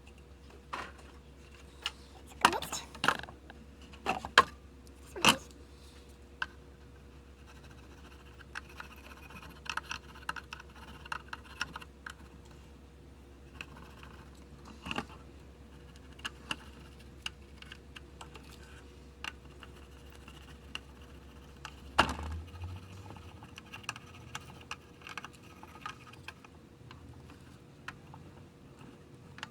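Scattered clicks, taps and light scraping of tools and parts being handled on a workbench, several sharp knocks in the first few seconds, over a steady low hum that stops with a loud click about two-thirds of the way through.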